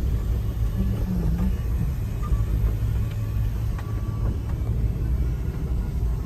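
A car's engine and road noise make a steady low rumble, as from a vehicle being driven.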